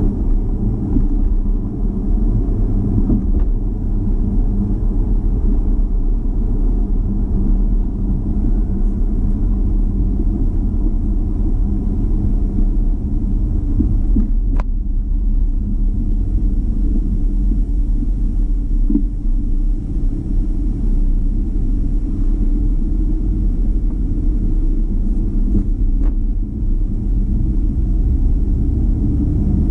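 Steady low rumble of a car driving slowly, tyre and engine noise heard from inside the cabin.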